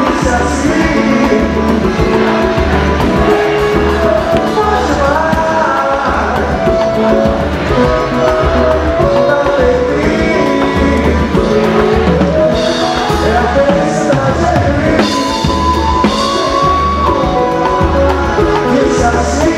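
Live samba band playing with singing over a steady low drum beat. It is recorded from the room rather than the mixing desk.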